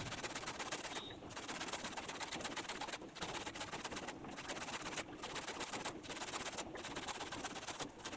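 Garlic being grated on a metal box grater: fast rasping strokes in runs of about a second, broken by short pauses.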